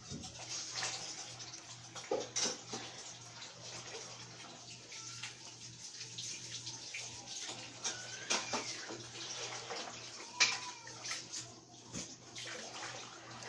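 Laptop keyboard keys tapping in irregular runs as code is typed, over a steady low hum. A few short, faint chirps sound in the background in the second half.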